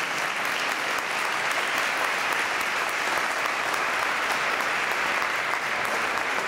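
Audience applauding: a seated crowd clapping steadily.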